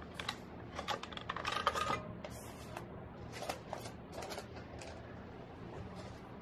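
Irregular faint clicks and light taps, clustered about one to two seconds in, then scattered and sparser.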